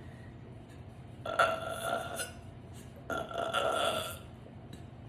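A woman belching twice, each belch drawn out for about a second, with a steady held pitch.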